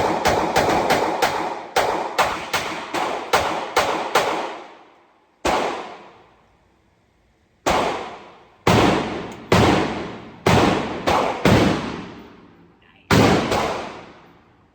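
Gunshots from a semi-automatic firearm. A quick string at about two to three shots a second for the first four seconds, then slower single shots about a second apart, each echoing and fading out.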